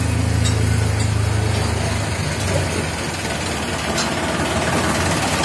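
Tractor diesel engine idling steadily, its low hum easing slightly about two seconds in, with a couple of faint clicks.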